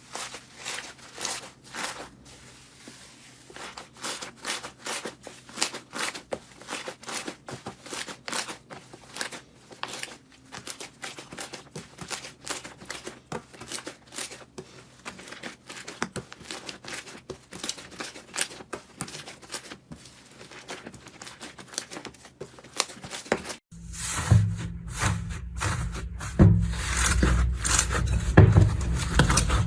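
Slime being pressed and worked by hand, giving a run of quick crackling clicks and pops. About 24 seconds in it cuts to a louder clip of the same kind of crackling, with more low end.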